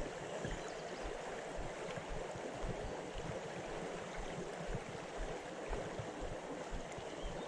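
River current flowing, a steady rush of moving water close by, with small low bumps mixed in.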